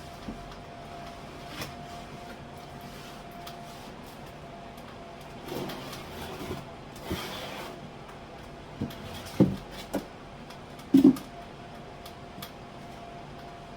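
Groceries and containers being handled and put away in a kitchen cupboard: a stretch of rustling and shuffling around the middle, then several knocks as items are set down, the loudest a quick pair about two thirds of the way through.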